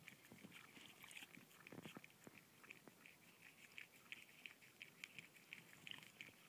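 Cat licking ice cream out of a small cup: a steady run of faint, quick wet licking clicks, several a second.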